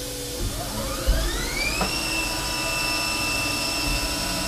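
CNC vertical mill's spindle spinning up as the program starts: a rising whine that levels off about two seconds in to a steady high whine over the machine's hum. A sharp knock sounds about a second in.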